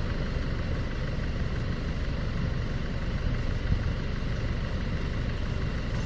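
Motor vehicle running, a steady low rumble of engine and road noise.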